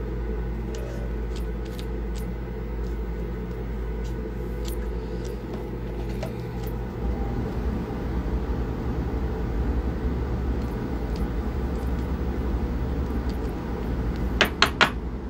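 A steady low mechanical hum runs under faint scattered clicks of trading cards and plastic sleeves being handled. Near the end come a few sharper clicks close together as cards are sleeved and slid into top loaders.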